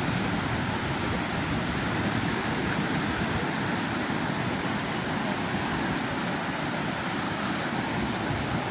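Steady outdoor ambience: an even wash of noise, with no distinct events standing out.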